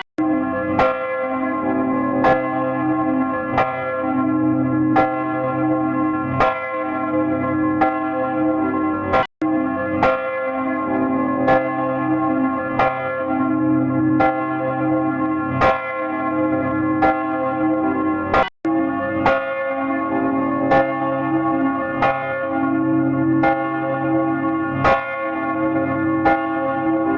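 Church bell ringing, struck at a steady pace of roughly one stroke every second and a half. Each stroke rings on into the next as a steady hum. The sound cuts out for an instant twice, about nine seconds apart, where recordings are spliced together.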